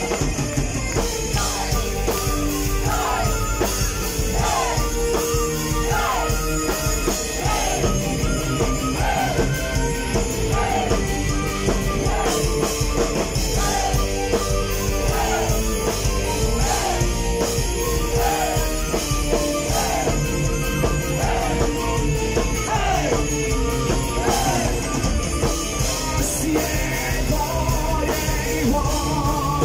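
Live rock band playing an instrumental passage with drums, electric guitars, bass and electric violin. A short falling melodic figure repeats about once a second through most of it.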